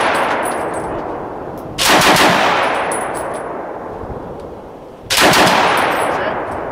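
Browning Automatic Rifle firing short bursts of .30-06 automatic fire on its slow rate setting. Each burst is a quick run of a few shots followed by a long fading echo. A burst's echo is dying away at the start, new bursts begin about two seconds in and at about five seconds.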